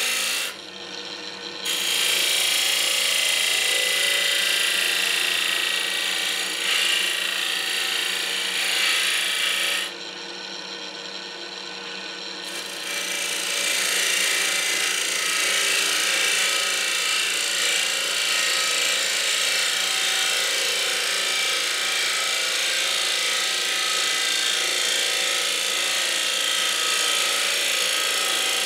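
Oak spinning on a wood lathe and cut with a half-inch spindle gouge: a steady shaving hiss over the lathe's hum. The cut pauses twice, briefly near the start and for about two seconds around ten seconds in, leaving the quieter lathe running.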